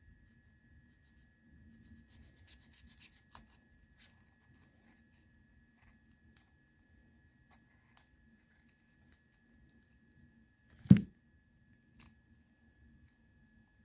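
Kitchen knife cutting around an avocado's rough skin, a run of faint scrapes and clicks in the first few seconds. A single loud thump about eleven seconds in, then a smaller click, over a faint steady hum.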